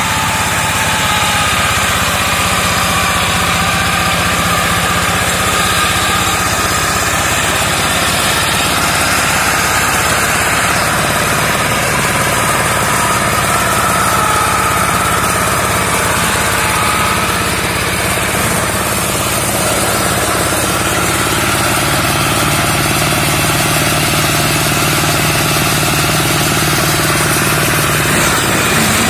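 Engine of a two-wheel hand tractor converted into a brush-clearing mower, running steadily at working speed as it is pushed through thick undergrowth. Its note wavers a little with the load.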